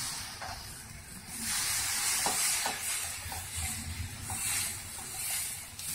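Pearl millet dosa batter sizzling on a hot griddle as the back of a ladle spreads it in circles, the scraping hiss swelling and fading with each sweep, about once a second, with a few faint ladle clicks.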